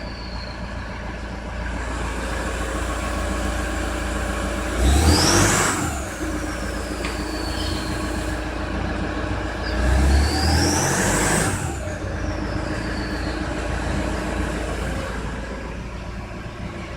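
Toyota Prado 3.0 turbodiesel idling and revved twice, about 5 seconds in and again about 10 seconds in. Each time the turbocharger whistle rises sharply, then falls slowly away as the turbo spools down.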